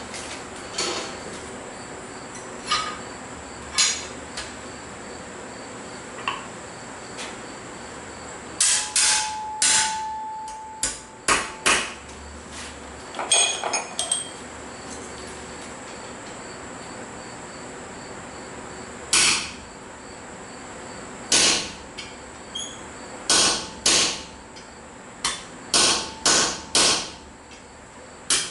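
Blacksmith's hammer striking steel on an anvil, sharp ringing blows in small groups with pauses between, ending in a quicker run of about five blows.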